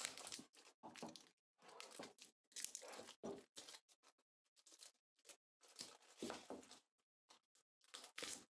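Clear plastic mould wrapping crinkling and tearing in short, irregular bursts as it is peeled off a cured epoxy resin and wood casting.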